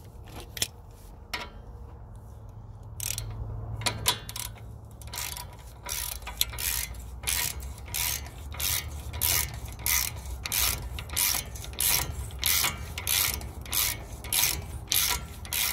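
Hand socket ratchet working an 18 mm bolt: a few scattered clicks at first, then about five seconds in a steady back-and-forth rhythm sets in, a short burst of pawl clicks on each return stroke, about three a second.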